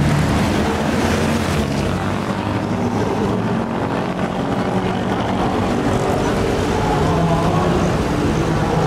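Steady drone of a vehicle engine in busy street traffic, with a continuous hubbub of background noise.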